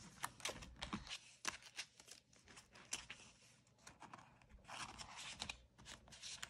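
Paper banknotes being handled and shuffled: faint rustling with many small flicks and clicks.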